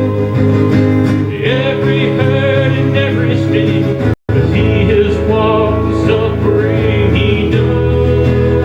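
Worship song music in an instrumental passage, with guitar prominent over sustained chords. The sound cuts out for an instant about four seconds in.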